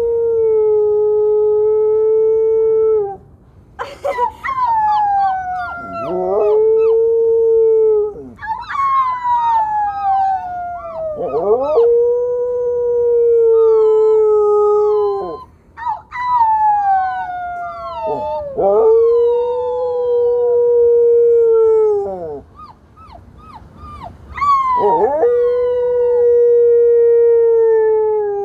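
Dog howling, about six long howls in a row. Each slides down in pitch and then holds a steady note for a few seconds.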